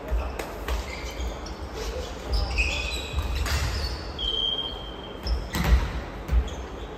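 Volleyballs being struck and bouncing on a wooden gym floor: several sharp thuds echoing in a large hall, the loudest about six seconds in, with a couple of short high squeaks in between.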